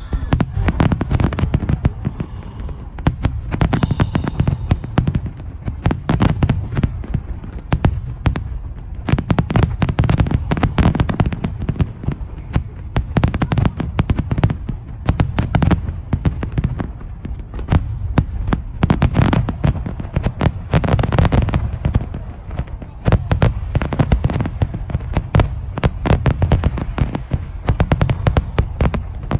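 Aerial fireworks display going off without pause: a dense run of booms and crackling bursts, several a second.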